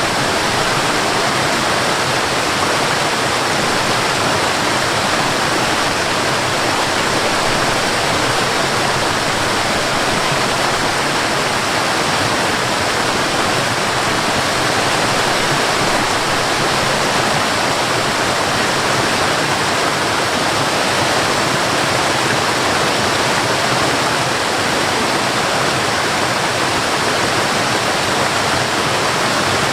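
Forest waterfall: water falling and rushing in a steady, unchanging roar.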